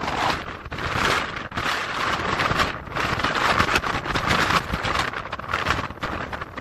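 Strong gusty wind buffeting the microphone: a loud, rough rush that swells and dips in gusts.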